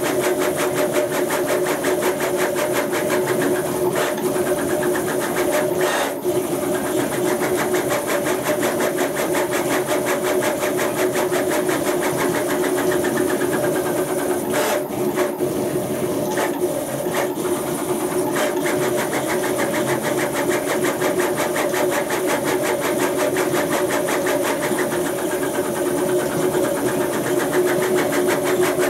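Stepper motors of a CNC router, driven by a G540 stepper controller, running steadily with a whining hum as the machine moves through a 3D print, the pitch drifting slowly with the speed of the moves. A few short clicks come in, around a third of the way through and again about halfway.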